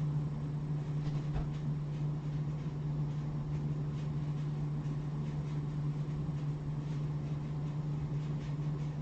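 Steady low hum of room equipment, unchanging throughout, with a few faint ticks.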